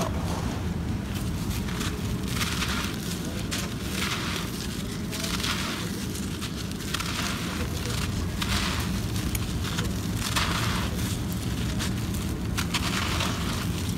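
Dry packed red dirt crunching and crumbling under the fingers, in gritty crackling bursts about every second or two, over a steady low rumble.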